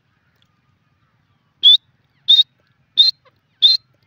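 Grey francolin calling: a series of short, sharp, high-pitched notes, evenly spaced about three every two seconds, beginning after a second and a half of quiet.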